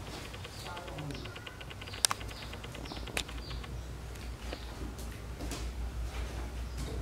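Small animal calls: short high-pitched squeaks and chirps, with a sharp click about two seconds in and another a second later.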